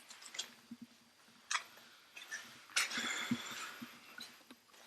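Footsteps crunching and scuffing on a gritty dirt floor strewn with debris: a few uneven steps, with a longer scrape about three seconds in.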